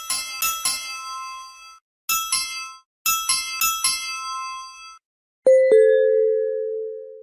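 Asus Zenfone 5Z stock ringtone clips played one after another: three short, bright chime jingles with brief silences between, then a louder, lower two-note ding that rings out and fades near the end.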